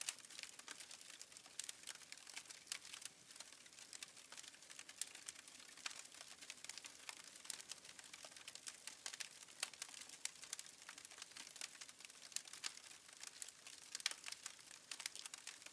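Faint crackling: many small irregular pops and snaps, like a campfire burning.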